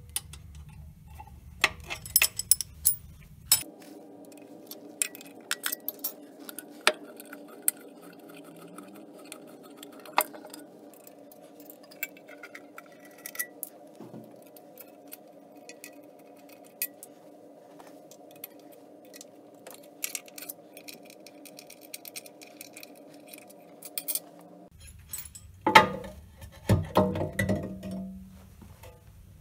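Steel hand tools clicking and clinking against the set screw and split pulley of a Weiler Praktikant lathe's belt drive, in many short irregular ticks over a faint steady hum. Near the end come several loud metal clunks as the lathe's hinged housing is moved.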